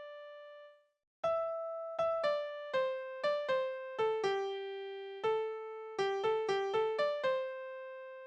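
Piano playback of a school-song melody from music notation software, one note at a time. A held note dies away, a short break follows about a second in, then a phrase of evenly struck notes ends on a long held final note that fades out.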